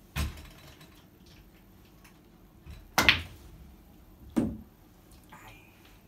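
A pool cue tip strikes the cue ball with a sharp click just after the start, then pool balls collide in one loud clack about three seconds in, followed by a duller knock about a second and a half later.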